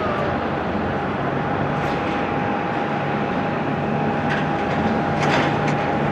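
Embraer 195's turbofan engines at takeoff power, a steady jet roar with a thin steady whine through it, swelling slightly near the end.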